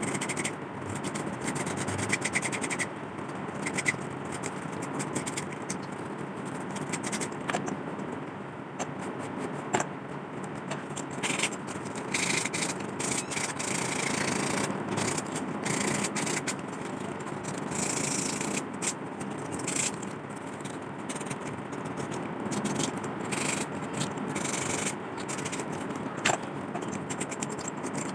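Sandpaper rubbing rust off the metal parts of an old lantern: a continuous, uneven scratchy rubbing, with a few sharp knocks along the way.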